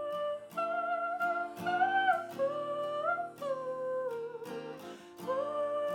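A wordless vocal melody of long, gliding notes over a strummed acoustic guitar, part of a self-written pop-folk song.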